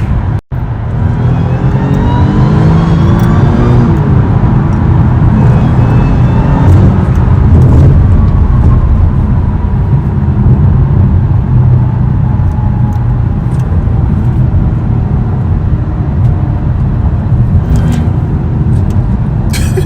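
Audi A6 3.0 TFSI supercharged V6 accelerating under throttle, its pitch climbing over the first few seconds along with a rising supercharger whine, then pulling on steadily through its new open intake.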